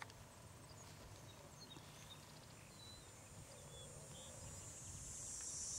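Faint outdoor ambience with a few scattered bird chirps. A high, steady insect buzz, like crickets, grows louder over the last couple of seconds.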